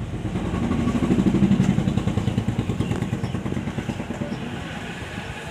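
A motor vehicle's engine running with a rapid pulsing beat, growing louder about a second in and then slowly fading.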